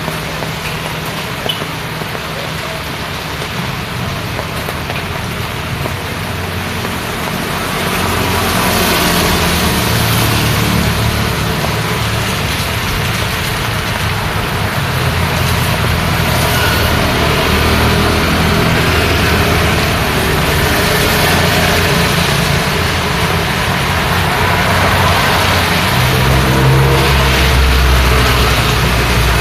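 Road traffic in the rain: vehicle engines running and passing over a steady hiss of rain and wet tyres. It grows louder about a quarter of the way in, and a deep engine rumble comes up near the end.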